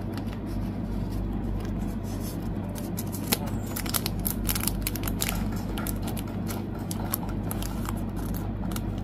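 Thin clear plastic card sleeves crinkling and rustling as photocards are slid into them, in many small sharp crackles. A steady low hum runs underneath.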